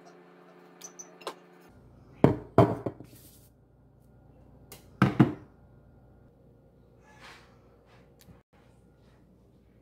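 Sharp knocks and thunks from a ceramic mixing bowl of bread dough being handled and set down on a kitchen countertop: two about two and a half seconds in and two more about five seconds in.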